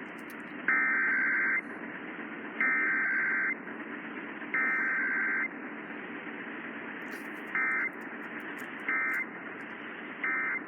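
Emergency Alert System SAME digital data bursts, a harsh two-tone warble, heard over AM radio with steady static hiss underneath. There are three long bursts of the alert header about two seconds apart, then three short bursts.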